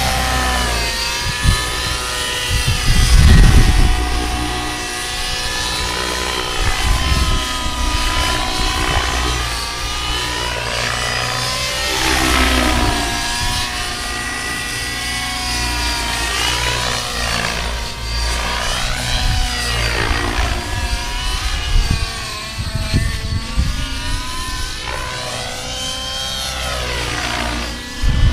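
Align T-Rex 700N nitro RC helicopter's glow engine and rotor whining as it flies 3D aerobatics, the pitch rising and falling again and again with the manoeuvres and passes. A loud low rumble comes about three seconds in.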